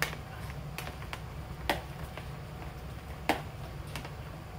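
Metal spoon clicking against a ceramic plate a few times as cubes of fried tofu are pushed off it into a plastic bowl.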